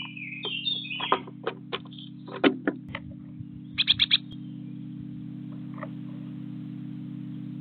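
A small garden bird chirping and twittering, with sharp clicks over the first few seconds and a quick run of four short loud notes about four seconds in. A steady low hum runs underneath.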